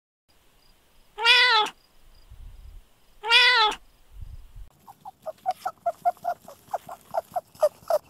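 Domestic cat meowing twice, each meow rising then falling and about half a second long. From about five seconds in comes a quick run of short high squeaks, roughly three to four a second.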